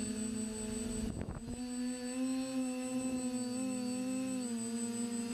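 TBS Discovery quadcopter's motors and 9.5-inch props humming steadily in flight, as heard from the onboard GoPro. Their pitch shifts a little with throttle, and a brief rush of noise comes about a second in. A thin high whine runs throughout.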